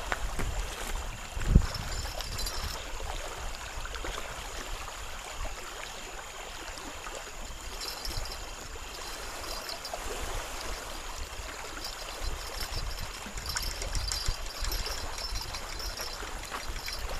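Steady wind and light rain, with gusts rumbling on the microphone, and insects chirping faintly in short runs now and then.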